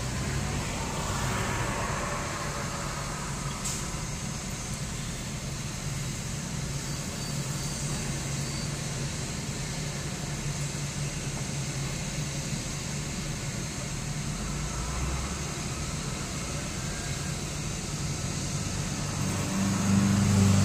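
Medical helicopter's turbine engines running on the ground: a steady high whine over a low hum.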